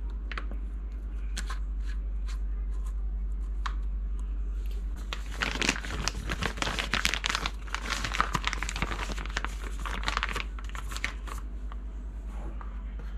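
Pink reusable piping bag being handled and folded open, a crinkling rustle from about five seconds in that stops about five seconds later. Before it come a few light clicks as the metal star tip and coupler ring are fitted.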